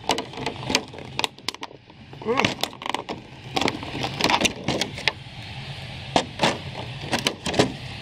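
Clear plastic clamshell packaging crinkling and clicking in a string of short, sharp crackles as the pieces of a boxed action figure are handled and pulled from its trays.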